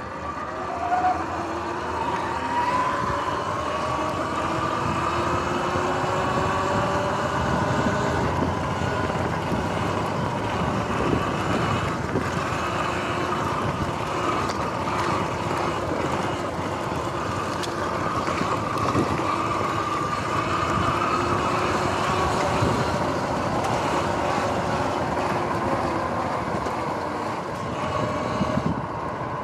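Sur-Ron X electric dirt bike's motor and drivetrain whining, rising in pitch as it pulls away, then holding a steady whine with small rises and falls, easing off near the end. Wind and tyre noise run underneath.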